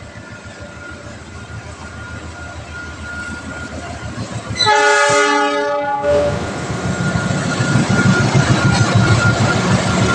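KAI CC 206 diesel-electric locomotive hauling a passenger train, growing louder as it approaches. About halfway through it sounds a single horn blast of just over a second. After that the engine and the wheels on the rails are loud as the locomotive passes close by.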